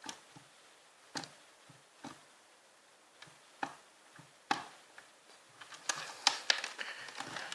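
Scattered light clicks and knocks of hands handling a refrigerator while it is being switched off, sparse at first and coming faster over the last couple of seconds.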